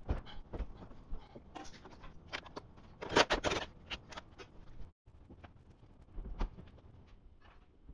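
Metal clanks, knocks and clicks of SUV doors being lifted into place and fitted to their hinges. A quick cluster of louder clicks comes about three seconds in.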